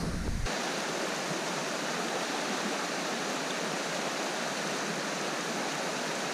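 The Garonne's mountain river water flowing over its bed: a steady, even rush with no change in level. A low rumble underneath stops about half a second in.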